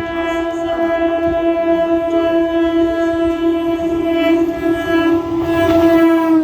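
Electric multiple unit train's horn sounding one long continuous blast, growing louder as the train approaches, with track noise underneath. Its pitch drops at the very end as the train passes.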